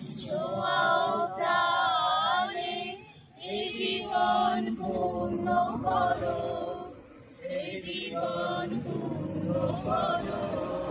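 A small group of men and women singing together in slow, held notes without instruments, with two short breaks between phrases.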